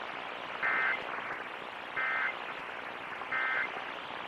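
Emergency Alert System end-of-message (EOM) signal: three short bursts of the SAME digital data tone, about a second apart, which close the alert. It comes over steady radio hiss.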